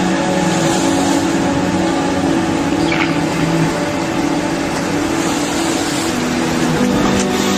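Tsunami floodwater surging through a harbour: a loud, steady roar of churning water, under held low tones that step to a new pitch a few times.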